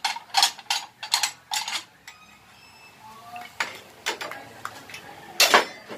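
Sharp metallic clinks and knocks of hand tools on a motorcycle drum-brake shoe clamped in a steel bench vise, part of stripping the old brake lining. There is a quick run of about five knocks in the first two seconds, a short lull, then a few more, with the loudest near the end.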